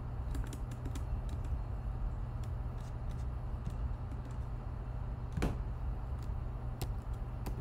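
Scattered computer keyboard key presses: a handful of separate clicks, one louder about five and a half seconds in, over a steady low hum.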